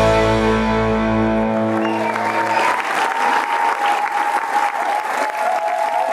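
A band's last held chord, with guitar, rings out and dies away about two to three seconds in, while a large audience applauds. The applause carries on with a steady high tone held over it.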